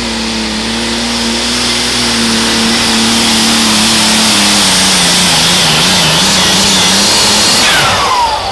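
Turbocharged alcohol engine of a White super stock pulling tractor running at full power under load as it pulls the sled, its pitch sagging slowly as the load builds. Near the end the engine is shut off and a falling whistle sweeps down as the turbochargers spool down.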